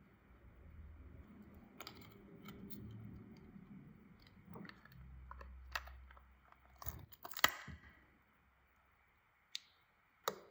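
Small sharp clicks and taps of tools and parts being handled during smartphone reassembly, over soft handling noise. The loudest click comes past the middle, and two separate sharp clicks come near the end.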